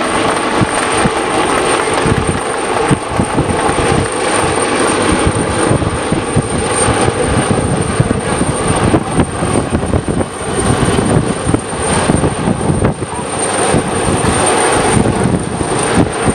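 Search-and-rescue helicopter hovering close by, its rotor and turbine engines running loudly with a rapid, steady blade thudding and a thin high whine above the rotor noise.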